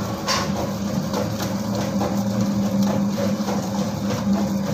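Homemade stainless-steel dough mixer running, its motor humming steadily as the hook kneads donut dough in the metal bowl, with a few scattered soft knocks.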